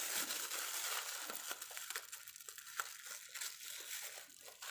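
Sugar being added to a kitchen mixer jar of cut watermelon: a dry crinkling hiss for about the first second and a half, then scattered light clicks and taps.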